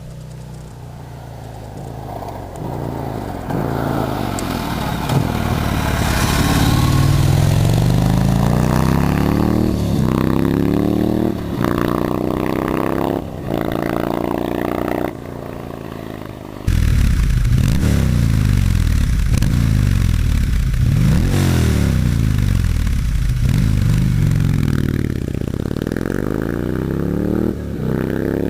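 WAKAN motorcycle's S&S 100 cubic inch (1640 cc) V-twin engine running hard, its pitch rising and falling again and again. It grows louder over the first several seconds and drops away briefly a few times around the middle before picking up again.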